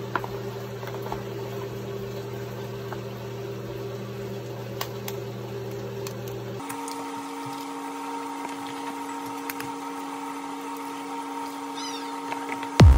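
A steady machine hum made of several even tones, which changes to a higher-pitched hum about six and a half seconds in, with a few faint clicks and taps over it.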